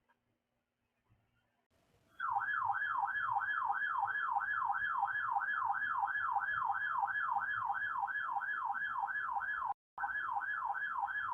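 Electronic weather-alert siren tone from a NOAA Weather Radio broadcast, starting about two seconds in and warbling up and down about three times a second over a faint steady high tone, with one brief dropout near the end. It signals an incoming severe weather warning.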